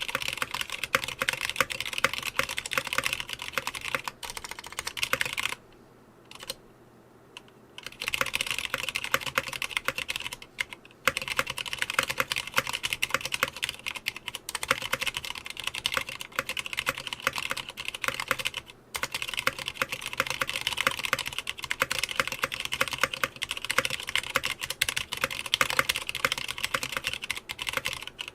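Fast continuous typing on a Clueboard 66% mechanical keyboard with stock Cherry MX Red linear switches, keys bottoming out in quick clacks. There is a pause of about two seconds about six seconds in, then the typing resumes.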